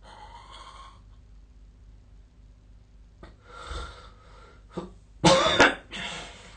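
A sleeping person breathing noisily a couple of times, then coughing loudly twice in quick succession about five seconds in.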